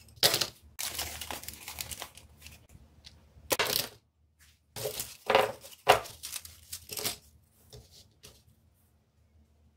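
A handful of thin wooden sticks falls onto a cloth-covered floor and clatters as the sticks scatter. After that come several separate clacks of wood on wood as the sticks are picked up and handled.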